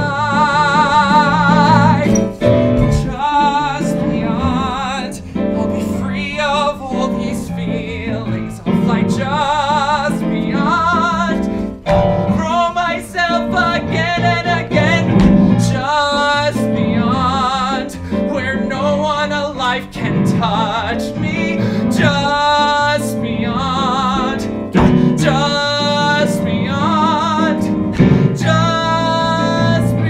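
A man singing a musical-theatre song over instrumental accompaniment, holding notes with vibrato.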